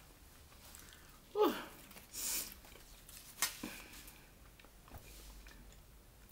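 Close-up eating sounds of a person chewing taco soup with the mouth closed: a short falling tone about a second and a half in, a breathy hiss, and a sharp click about three and a half seconds in.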